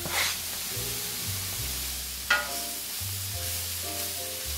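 Sliced mushrooms sizzling as they sauté in a cast iron skillet, stirred with a wooden spatula, with one sharp knock about two seconds in. Soft background music plays underneath.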